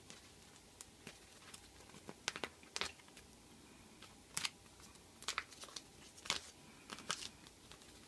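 Faint, irregular crinkling and crackling of a cut rhinestone sticker sheet and its tape-edged paper backing as they are handled and pulled apart by hand.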